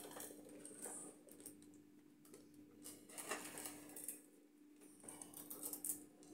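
Faint scattered clicks and rustles of plastic Lego bricks as a large Lego baseplate model is turned and shifted on a marble tabletop, over a faint steady hum.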